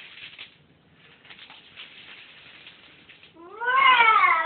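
A house cat's single loud meow about three and a half seconds in, rising and then falling in pitch. Before it there is a faint crackling rustle of dry cat food spilled on the floor.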